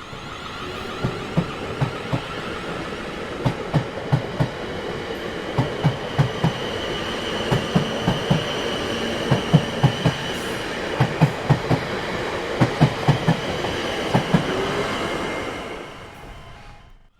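A train's wheels rolling over rail joints: clickety-clack in quick pairs and clusters over a steady rumble, with a faint high wheel squeal. It fades out near the end and stops abruptly.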